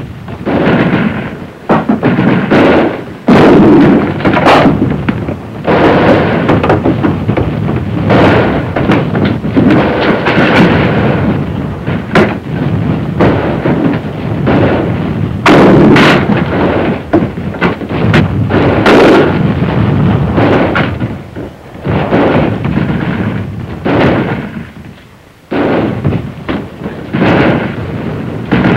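Staged battle gunfire on an old film soundtrack: many shots in quick, irregular succession over a heavy rumbling din, with the loudest shots about 3 to 4 seconds in and again near 16 and 19 seconds, and a short lull near 25 seconds.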